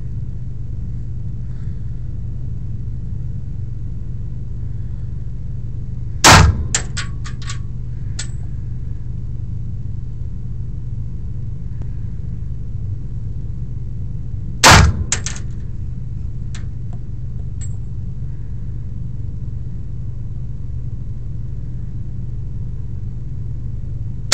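Three single pistol shots from a semi-automatic handgun, about eight seconds apart, the last near the end. Each is followed by a few light metallic clinks, over a steady low hum.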